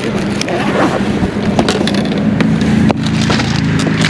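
A boat motor's steady low hum, which grows stronger about two seconds in, with wind buffeting the microphone and scattered clicks and knocks.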